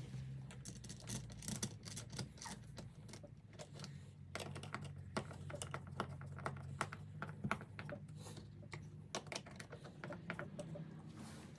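Light, irregular clicks and taps of a screwdriver and small metal parts as machine screws are driven into a smart lock's interior mounting plate on a door.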